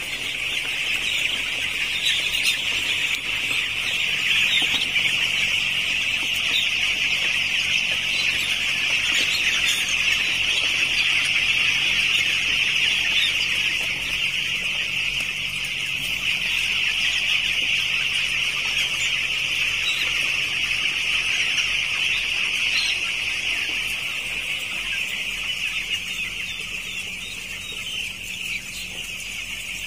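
Dense, continuous peeping chorus from a large flock of 12-day-old broiler chicks.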